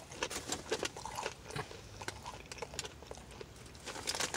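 A person chewing a mouthful of crispy fried chicken sandwich with onion rings and bacon, with quick crisp crunches that are thickest in the first second and a half and sparser after.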